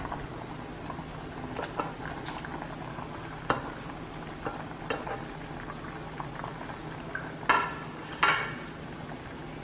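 Pot of soup boiling on a gas burner, a steady bubbling with small clicks and plops as pineapple chunks are slid off a plate into it. Two louder clattering knocks come close together near the end.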